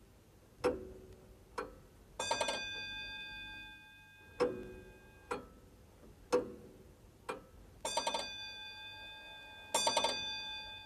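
A clock sound effect: single sharp ticks about a second apart, with three bursts of a quickly struck bell, about two seconds in and twice near the end, each ringing on and fading.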